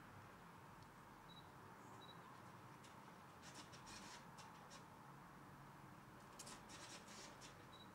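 Eurasian red squirrel gnawing and crunching food: faint quick crunching clicks in two short runs, one near the middle and one about a second before the end, over near silence.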